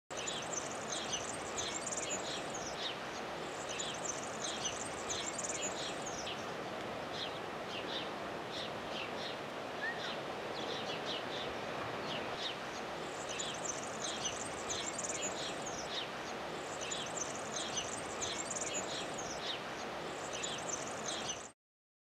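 House sparrow chirping over and over, short chirps a few times a second, with runs of higher twittering, over a steady hiss of outdoor background noise. The sound cuts off suddenly near the end.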